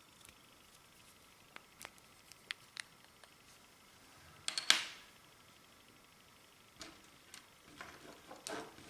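Clear slime being worked by hand: scattered sticky clicks and pops, with a louder crackling burst about halfway through.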